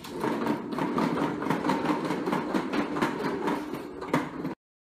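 Hard plastic wheels of a ride-on swivel car rolling over a tile floor: a continuous rattling rumble full of little clicks, cutting off abruptly near the end.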